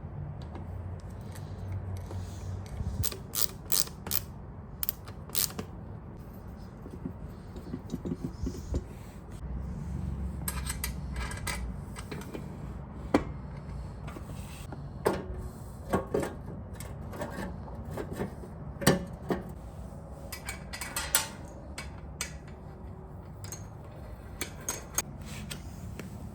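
Scattered metallic clicks, clinks and scraping from hand work on the Atlas Power King table saw's metal mechanism.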